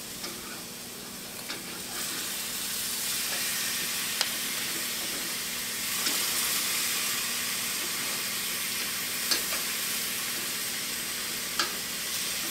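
Marinated portobello mushrooms sizzling on the hot grates of a gas grill, a steady hiss that grows louder about two seconds in, with a few sharp clicks as they are turned.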